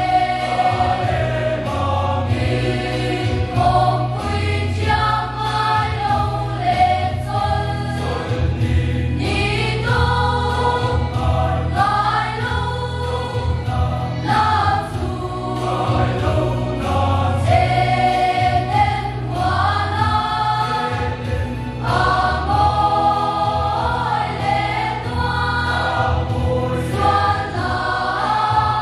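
Large mixed choir of women's and men's voices singing a hymn in Mizo together, with a steady low accompaniment underneath.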